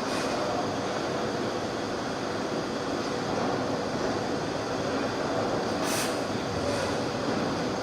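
Salvagnini fiber laser cutting machine running with a steady mechanical noise, with two short hisses about six seconds in.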